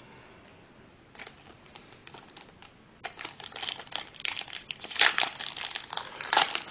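Foil wrapper of a Pokémon Champion's Path booster pack crinkling as it is handled and torn open, starting about three seconds in with dense, irregular crackles.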